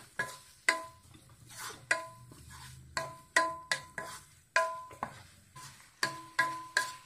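Wooden spatula knocking and scraping against the sides of a nonstick kadai while the clam mixture is stirred: repeated irregular knocks, two or three a second, each with a short metallic ring from the pan.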